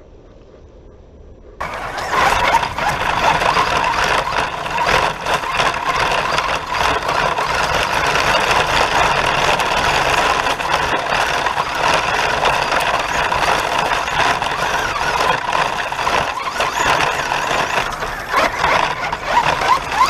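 Traxxas Rustler R/C stadium truck setting off about a second and a half in and driving fast over dirt and leaves, heard from a camera mounted on it: a steady high whine from the drivetrain over a loud rough rush of tyres and wind on the microphone.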